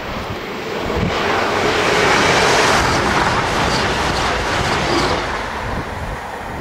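Diesel passenger train passing at speed close by on the main line. The rush of wheel and engine noise swells about a second in, is loudest around two to three seconds, and fades after about five seconds.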